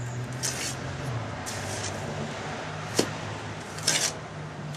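Steel trowel scraping and slapping wet cement into holes in an old stone foundation, laying on the first coat: several short scrapes and a sharp tap about three seconds in. A steady low hum runs underneath.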